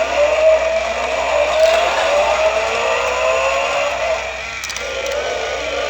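A revving car-engine sound that climbs slowly in pitch for about four seconds, then eases off near the end.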